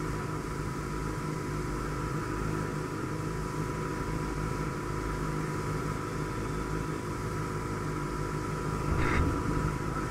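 Motorcycle engines idling steadily while stopped in traffic, with one short louder sound about nine seconds in.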